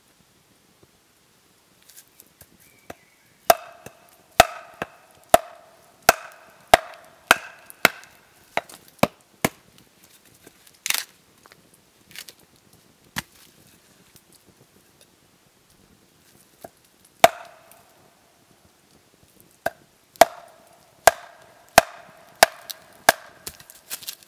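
Wooden mallet striking the back of a blade driven down into an upright log to split it: sharp wooden knocks with a short ringing tone, about one and a half a second, in two runs with a pause between. A short crackle comes near the middle.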